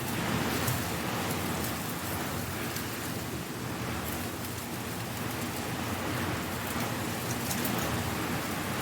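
Strong wind blowing dry leaves: a steady rushing with scattered crisp crackles of leaves skittering and rustling.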